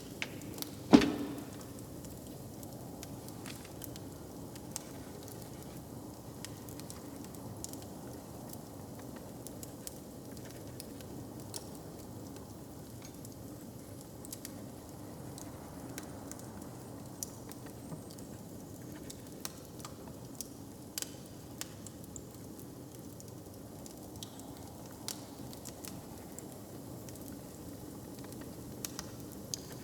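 Crackling fire: a steady hiss with scattered sharp pops, and one loud knock about a second in.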